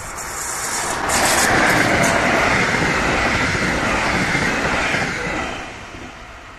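Regional train of double-deck coaches hauled by an electric locomotive passing close by at speed: a rushing rumble of wheels on rails swells about a second in, with a few sharp clicks, then fades after about five seconds as the train goes by.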